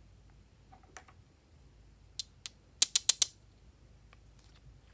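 Small plastic clicks from handling a lipstick-style tube and pulling its cap off: a couple of light clicks, then a quick run of four louder, sharp clicks about three seconds in.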